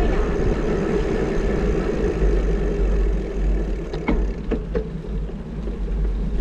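Wind rushing over a GoPro's microphone as a bicycle rides along, with a steady low rumble of wind and tyre noise. A few short clicks come about four seconds in.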